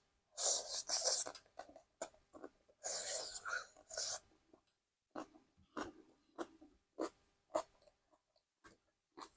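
Eating close to the microphone: two rough crunching bursts in the first four seconds, then steady chewing with a short wet click a little under twice a second.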